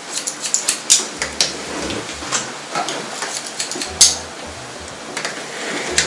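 Hairdressing scissors snipping through hair in quick, irregular clicks, a few louder snips about a second in and around four seconds in.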